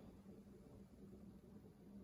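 Near silence: a lull between snores, with only faint room tone and a low steady hum.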